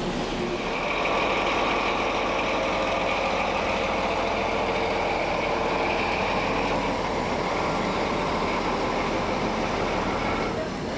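DB class 212 diesel-hydraulic locomotive running under power as it shunts a train back and forth. Steady engine noise that swells about half a second in and breaks off just before the end.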